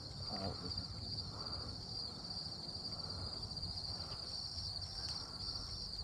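Steady high-pitched insect chorus, trilling with a slight pulse.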